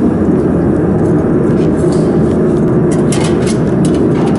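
Loud steady machinery noise from a workshop, with a few light clicks and knocks about three seconds in as the plastic cover of an electrical box is handled.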